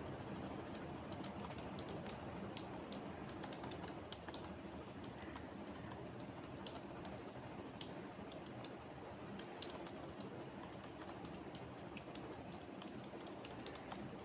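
Typing on a computer keyboard: irregular runs of keystroke clicks with short pauses, over a steady low background hum.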